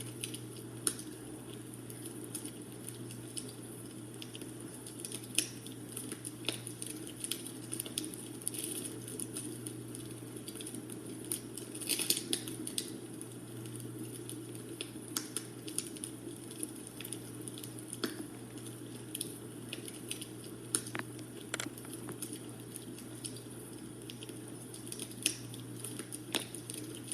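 Wood fire burning in a fireplace, crackling with irregular sharp pops over a steady low hiss and hum, with a brief flurry of louder pops about twelve seconds in.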